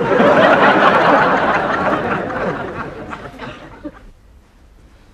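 Studio audience laughing, loudest at the start and fading away over about four seconds.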